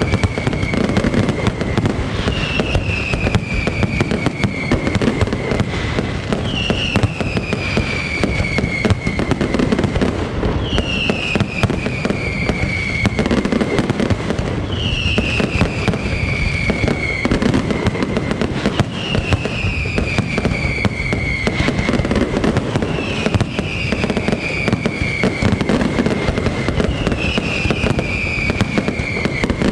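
Aerial fireworks display: a dense, continuous crackle of shells and firecrackers bursting, with a falling whistle about every four seconds.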